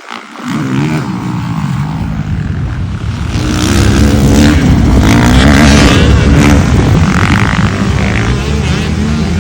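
Dirt bike riding on a motocross track, its motor rising and falling in pitch and growing louder a few seconds in.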